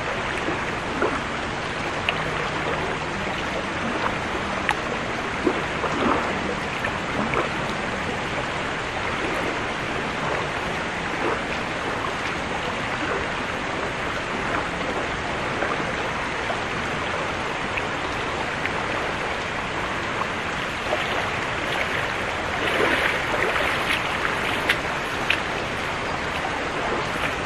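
Swollen, fast-flowing flood river rushing steadily, with scattered small splashes and knocks; louder splashing near the end.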